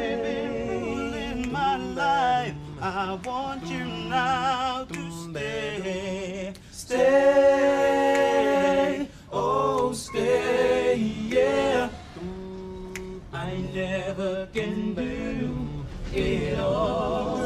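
Male close-harmony vocal group singing a slow soul ballad a cappella, several voices in harmony on long held, wavering notes, with short breaks between phrases.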